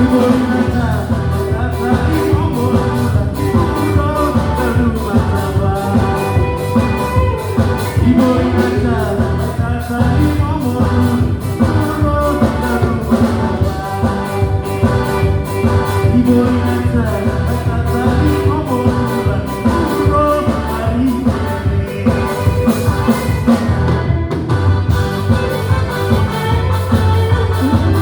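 A band playing a song at a live sound check, with a steady drum beat and a singing voice over the instruments.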